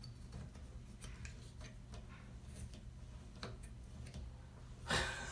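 Faint, scattered light clicks from a Delta 17 Series shower cartridge stem as it is worked by hand in the valve body, over a low steady hum. One louder, brief brushing sound comes near the end.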